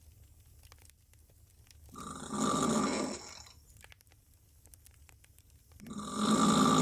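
A woman snoring loudly on her back with her mouth open. Two long snores come about four seconds apart, each lasting about a second and a half, and the second is louder.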